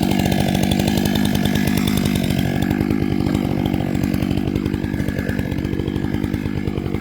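Stihl MS 661 two-stroke chainsaw running steadily at high revs, cutting into a log.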